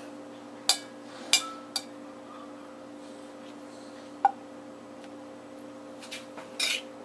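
A serving spoon clinking and scraping against a dish while cooked mushroom filling is scooped onto lettuce leaves: a few separate sharp clicks and a short scrape near the end, over a steady low hum.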